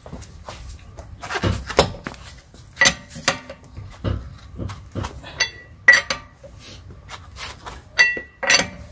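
Steel lug wrench clinking and clanking against the lug nuts and alloy wheel as the nuts are tightened: a string of irregular sharp metallic clinks with a short ring, mixed with a few dull thumps.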